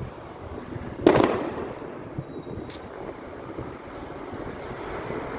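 A firework exploding about a second in: one loud bang with a rolling echo that dies away, followed by a faint distant crack or two, over steady wind noise.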